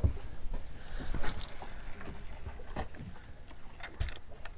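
Outdoor sound aboard a small fishing boat with no motor running: a low wind rumble and water noise, with a few sharp knocks about a second in, near three seconds and near the end.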